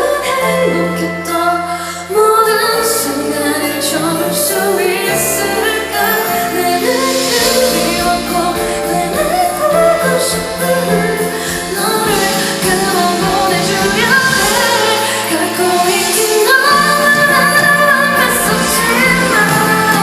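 Live pop-rock band music with a woman singing, recorded from the audience in a concert hall.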